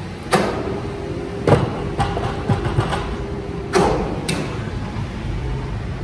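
Sawmill log carriage rolling along its steel rails with a sawn timber block on it, toward a running horizontal bandsaw. There is a steady machine hum, a steady whine in the first half, and about five sharp metal clanks and knocks from the carriage and the timber.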